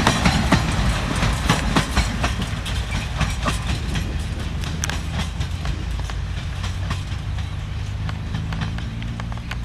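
Freight boxcars' wheels clacking over the rail joints of broad-gauge track as the end of a long train passes and draws away, with a low rumble. The clicks thin out and the sound fades gradually.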